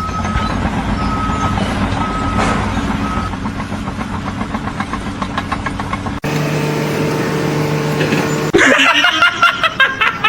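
A heavy machine's engine running steadily, with a backup alarm beeping four times in the first few seconds. About six seconds in the sound cuts to a different steady machine drone, then to voices near the end.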